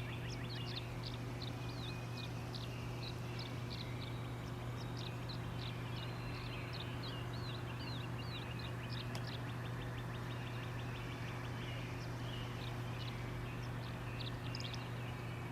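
Tree swallow twittering: a continuous run of short, quick chirps and warbles, over a steady low hum.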